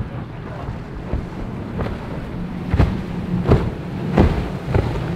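Cigarette powerboat's outboard engines droning as it runs fast through choppy inlet water, its hull slapping the waves about five times with sharp splashes. Wind buffets the microphone.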